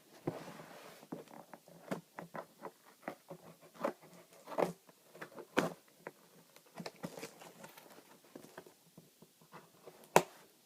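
A cardboard shipping box being handled and picked open by hand: irregular scratching, tapping and small clicks, with a sharp knock near the end.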